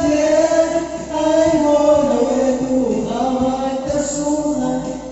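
Two men singing karaoke into microphones over a backing track, holding long drawn-out notes of a slow Mandarin ballad.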